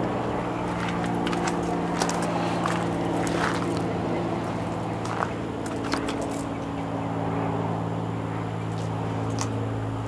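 Steady low mechanical hum made of several held tones, like a motor or engine running without change. Scattered light clicks and scuffs sound over it, loudest about two seconds in and again around five and six seconds.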